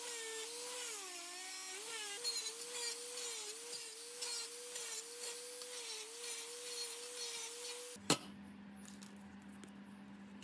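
Angle grinder with a brush wheel stripping rust from a steel plate: a steady motor whine that sags and recovers in pitch as the wheel is pressed into the metal, over a scratchy hiss. About eight seconds in it cuts off with a click, leaving a faint steady hum.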